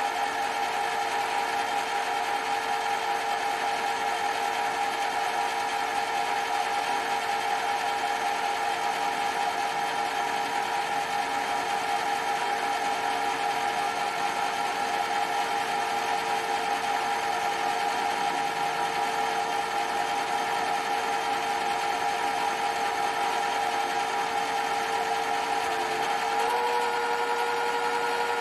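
Mini lathe spindle running at a steady speed with a steady whine, the pitch stepping up slightly near the end. The spindle is noisy, a sound the owner calls terrible.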